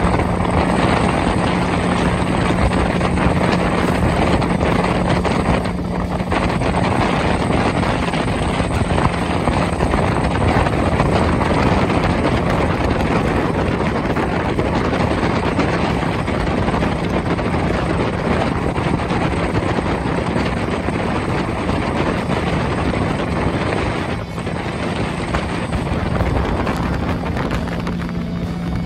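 Jet boat running at speed up a river: steady engine and jet-drive noise mixed with rushing water.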